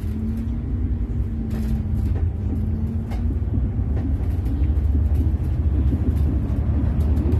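Iveco Urbanway 18M articulated city bus driving, heard from inside near the doors: a steady low rumble, with a steady low hum over it for about the first three seconds that then turns uneven and wavering.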